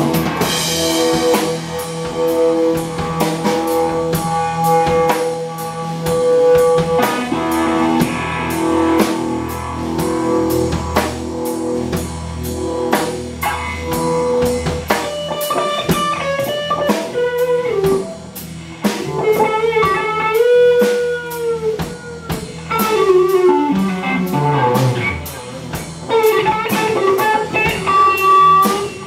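Live rock band: a fuzz-distorted Stratocaster electric guitar plays a blues-rock lead over a drum kit. It holds long sustained notes at first, then moves to bent notes, with a long downward slide near the end.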